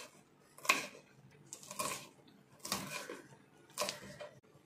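Kitchen knife chopping green chillies on a wooden board: four cutting strokes about a second apart.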